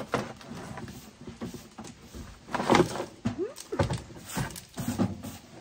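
Household items knocking and clattering as they are handled and taken out of a box, a string of irregular knocks with a short rising squeak about three and a half seconds in.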